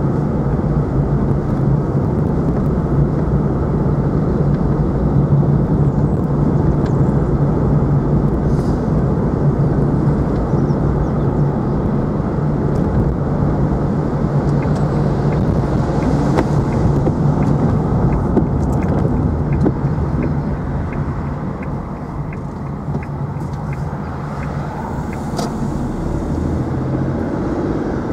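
A car's engine and tyre noise heard from inside the moving car, steady, with a constant low hum. It eases a little about three-quarters of the way through, then picks up again.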